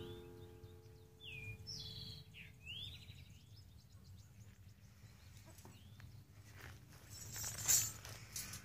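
The last notes of a steel tank drum ring out and fade, then a bird gives several short, falling chirps. Near the end there is a brief rustle of handling as the drum is lifted.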